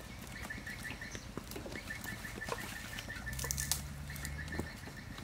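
Charcoal and ash being poked and stirred with a stick in a metal barrel stove, giving scattered light scrapes and clicks. Behind it comes a high chirp repeated in quick runs, about five a second, and a low hum holds for about a second near the middle.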